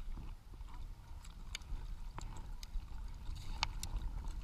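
Low, steady rumble of water and wind around a kayak, with about seven light, irregular clicks and taps from the fishing rod, reel and gear being handled.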